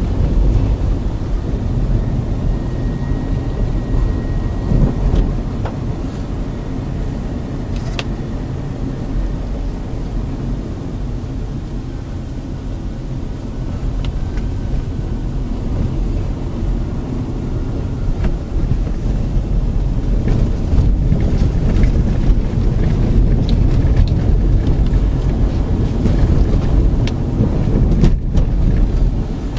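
Road, wind and engine noise heard inside a 2006 Honda Accord automatic on the move: a steady low rumble with now and then a sharp click, growing somewhat louder about two-thirds of the way through.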